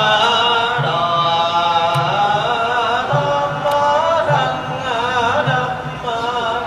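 A group of Buddhist monks chanting together in slow, sliding tones, with a short low beat recurring about once every second underneath.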